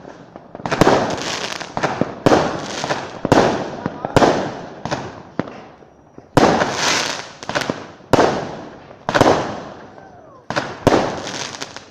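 Fireworks going off in a rapid series of bangs, roughly one a second or faster, each trailing off in a crackling hiss.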